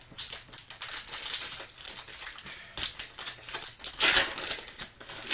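Trading cards being handled and flipped through by hand: quick clicking and rustling of card stock, with a louder rustle about four seconds in.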